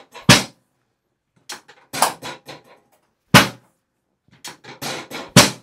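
Chiropractic drop table clacking down sharply three times, a few seconds apart, as the chiropractor's thrust releases the pelvic drop section during a pelvic adjustment. Lighter clicks and knocks come between the drops.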